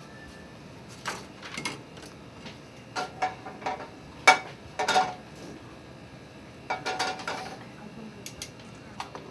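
Metal pans and utensils clanking and clattering in several short clusters of knocks, some with a brief metallic ring.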